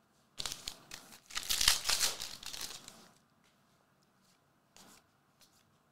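Trading cards being handled, rustling and scraping against one another for a couple of seconds as the front card of a stack is slid off to show the next one, then a faint tick.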